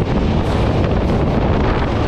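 Passenger train running at speed across a steel truss bridge, heard from an open coach door: a loud, steady rumble of wheels and bridge with wind blowing on the microphone.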